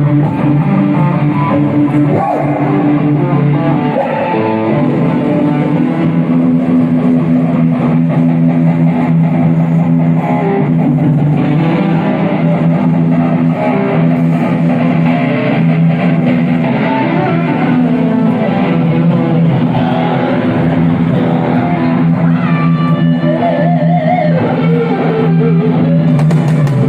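Live band playing guitar-led rock music with electric guitar to the fore.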